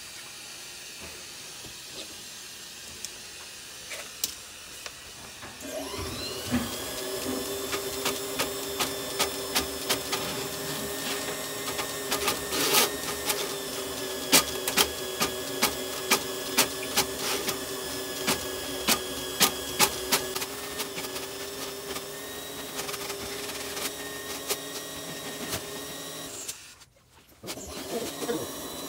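Electric Flexi Rodder drain-cleaning machine spinning up about six seconds in and then running at a steady pitch, turning an 8 mm spring wire cable down a clogged kitchen floor drain to clear the blockage, with regular ticks about every half second. Before it starts there is only a steady low hiss, and the sound cuts out briefly near the end.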